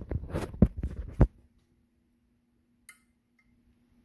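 A handful of sharp clicks and knocks in the first second or so, then a single faint metallic tick about three seconds in, from handling the metal pop-up drain lift rod at a new chrome bathroom faucet.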